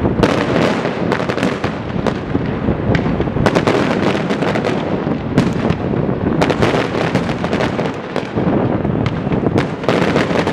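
Aerial fireworks going off: many shells bursting in quick succession, their bangs overlapping with continuous crackling.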